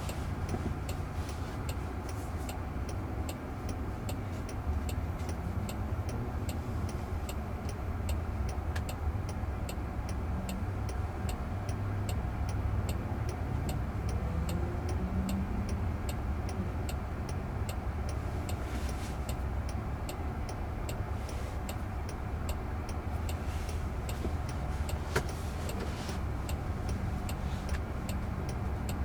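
Steady road and tyre rumble inside a Waymo robotaxi's cabin, with a regular light ticking of about two ticks a second throughout.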